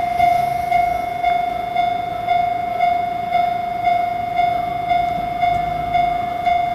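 Railroad crossing warning alarm at a Seibu Shinjuku Line level crossing, ringing a steady repeated single-pitched ding about twice a second to warn of an approaching train.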